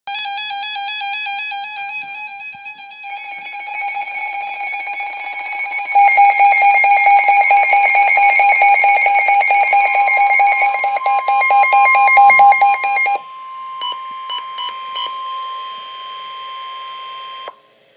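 Emergency alert warning tones: a warbling electronic tone, then a loud, rapidly pulsing alarm from about six seconds in, a few short beeps, and a steady single tone that cuts off suddenly near the end.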